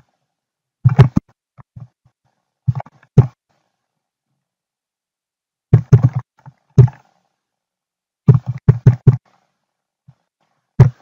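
Computer keyboard keystrokes close to the microphone, in irregular bursts of clicks and dull thumps as a line of text is typed.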